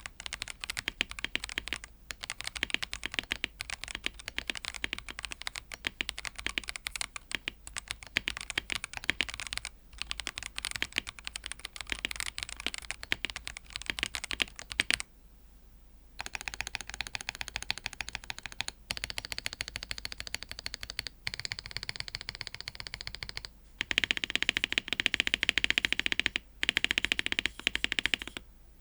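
Typing sound test on a Noir Timeless82 mechanical keyboard fitted with TMT Taho PBT keycaps and Afflion Ink switches: a steady run of key clacks. A brief pause about halfway through is followed by faster, more even keystrokes that get louder near the end.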